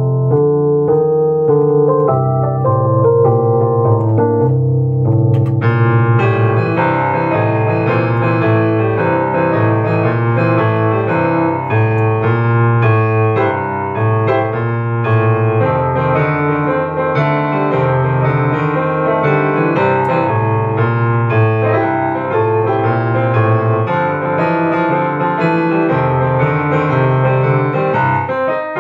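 Upright piano played solo: a low bass part under chords and right-hand lines, getting brighter in the upper register about five seconds in.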